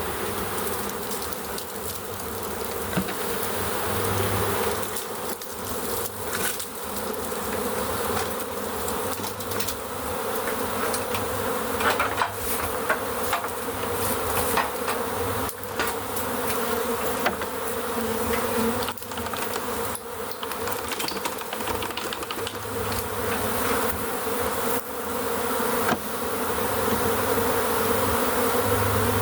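Dense, steady buzzing of a swarm of honey bees in flight, with scattered short knocks.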